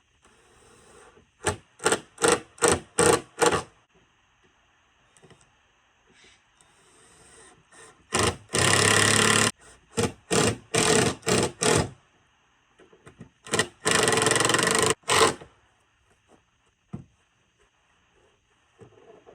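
Cordless power driver driving screws into wood in trigger bursts. It starts with five quick bursts, then runs for about a second, gives several short bursts, and runs for another second or so.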